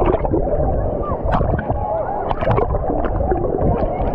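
Wave-pool water sloshing and gurgling, muffled on a GoPro, with indistinct crowd voices and scattered small splashes and knocks.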